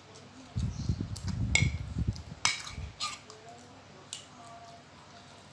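Metal spoons and forks clinking against ceramic plates of noodles, a few sharp clinks, over a stretch of low muffled thumping in the first half.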